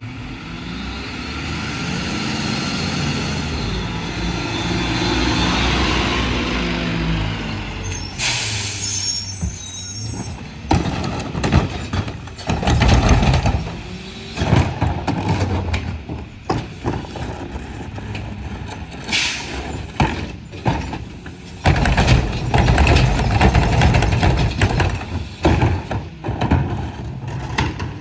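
A Mack MRU garbage truck's engine runs as the truck pulls up, with its pitch rising and falling, and its air brakes hiss about eight seconds in. After that come repeated clanks and thumps as trash carts are tipped by the McNeilus rear loader's hydraulic tipper bar and dumped into the hopper, with long loud stretches of the dumping and hydraulics.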